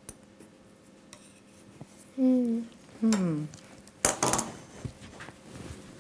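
Two short hummed "mm" sounds, the second falling in pitch, then a brief clatter of small tools against a dish on a worktable about four seconds in, with a few light clicks.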